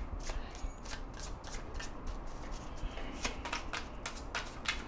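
Tarot cards being shuffled and handled by hand: a quiet run of short, irregular card clicks, a few each second.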